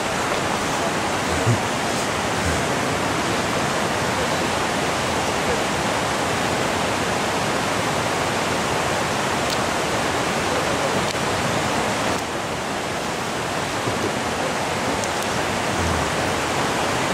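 Steady rushing of a mountain river or stream, unchanging throughout.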